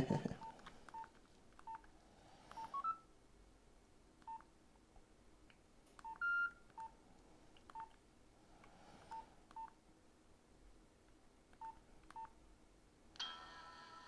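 Nokia X2-01 keypad tones: short single beeps at irregular intervals as keys are pressed, with one slightly higher, longer beep about six seconds in. Background music starts near the end.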